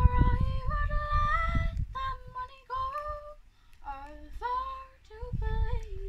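A girl singing a slow, unaccompanied song, holding notes and sliding between them, with short breaks between phrases. A low rumble lies under her voice at the start and again near the end.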